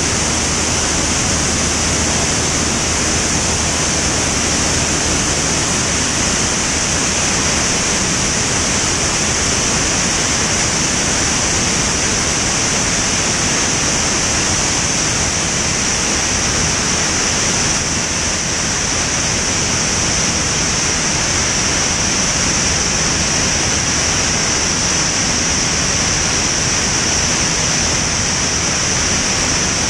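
Steady rush of air over a wing-mounted camera on a Van's RV-10 in flight, with the low drone of the engine and propeller underneath.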